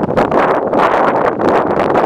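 Strong gusty wind buffeting the microphone, loud and continuous with rapid surges.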